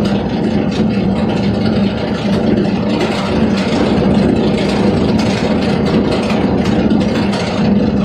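Single-shaft crusher of a cable granulator running loaded, its toothed rotor chopping scrap cable: a steady machine hum with a constant fine clatter of cut pieces.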